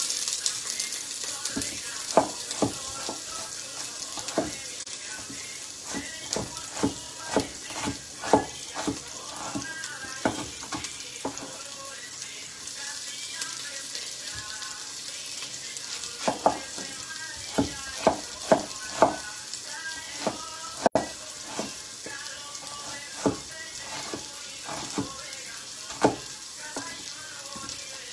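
Sliced onion sizzling in hot olive oil in a pot, the hiss starting the moment the onion goes in. Over it, sharp knife strikes on a wooden cutting board come at irregular intervals as more onion is cut.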